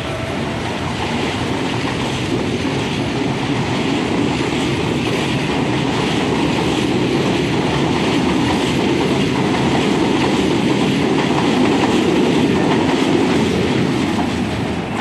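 CPTM series 8500 electric multiple unit pulling out of the station and running past close by, a steady rumble of wheels on rails with some clatter, slowly growing louder as it picks up speed and easing off near the end as the last car goes by.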